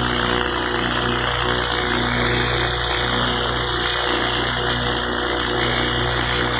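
Radio-controlled 500-size UH-1H Huey model helicopter hovering low, a steady motor and gear whine over rotor noise.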